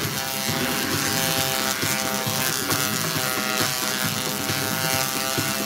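Tesla coil's arc discharge striking a chainmail suit, a loud, harsh electric buzz with crackle that holds steady tones throughout.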